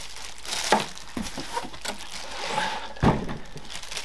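Plastic wrapping and styrofoam packing being handled and pulled out of a cardboard box: irregular rustling and crinkling, with two sharper knocks, about a second in and near the end.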